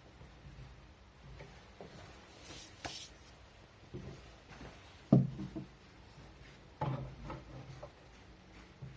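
Workshop handling sounds with the lathe not running: light rubbing and scraping, and a few sharp wooden knocks, the loudest about five seconds in and another near seven seconds.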